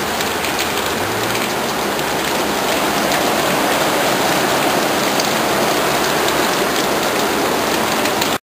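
Heavy downpour of rain, a steady dense hiss of rain on the ground, that cuts off suddenly near the end.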